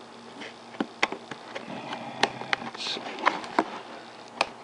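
Cutting through the security tab on a cardboard product box: a string of irregular sharp clicks and scratches, with a short scrape near the middle.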